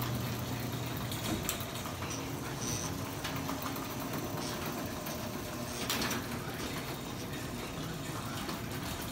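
Garage door opener motor running steadily as it lowers a sectional door on extension springs, with a few short clicks along the way.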